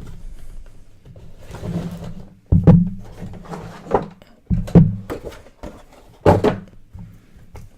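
A sealed trading-card box being opened by hand: rustling of wrapper and cardboard, with three sharp knocks as the box and its contents are handled and set down.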